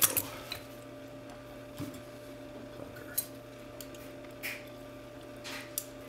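Scattered small metal clicks and scrapes as the brass lock core of an LSL pipe key padlock is handled and probed with a thin screwdriver during disassembly, the sharpest click right at the start. A steady faint hum runs underneath.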